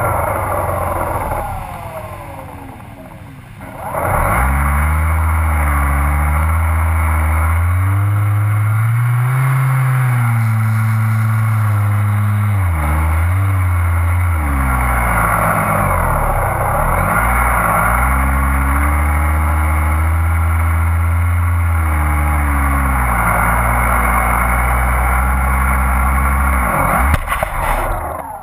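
Motor and propeller of a radio-controlled model plane, heard from its onboard camera together with the rush of air. The pitch rises and falls with the throttle and drops away briefly around 2 to 4 seconds in. It then runs steadily until a knock near the end, when the plane comes down on the sand and the motor stops.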